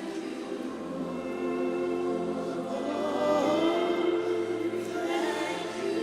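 Slow gospel worship music: a choir and congregation sing long held notes over a keyboard and bass backing, with the bass note shifting a couple of times.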